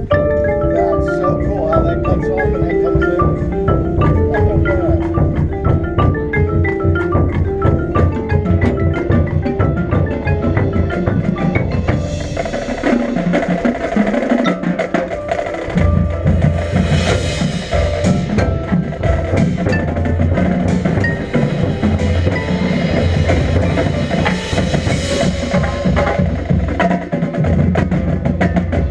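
Marching band playing its field show: marimbas and xylophones run fast patterns, then about twelve seconds in the cymbals and drums come in with the full band.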